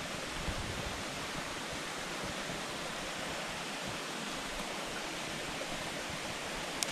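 Steady rushing background noise, even throughout, with a couple of sharp clicks just before the end.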